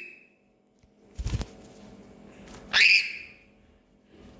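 A thump a little over a second in, then a parrot gives a single short, rising squawk near three seconds.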